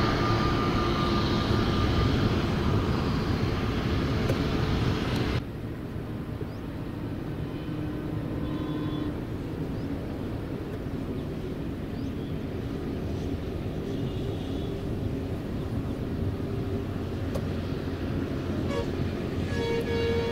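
Airbus A321neo jet engines running at low taxi power, heard from a distance as a steady rumble and hiss with a faint whine. The sound is louder for about the first five seconds, then drops abruptly to a quieter steady level.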